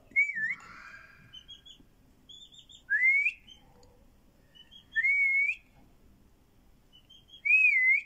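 A caged bulbul singing a short whistled phrase four times, roughly every two and a half seconds. Each phrase is a few quick high notes followed by a louder wavering whistle.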